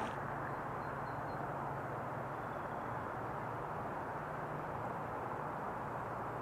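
Steady outdoor background noise with a faint low hum. A few faint high chirps come about a second in.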